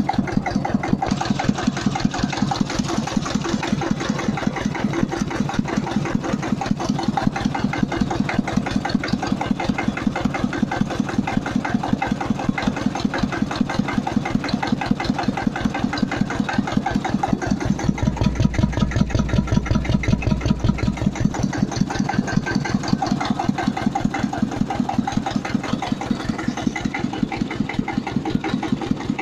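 Hebei 92 BH tractor engine running steadily at idle with an even, rapid beat, its V-belt pulley drive turning. A deeper low rumble joins for a few seconds about two-thirds of the way in.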